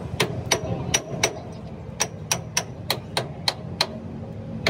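Hammer strikes on steel at a Hino truck's rear differential pinion flange: sharp metallic taps about three a second, each with a short ring, over a steady low rumble.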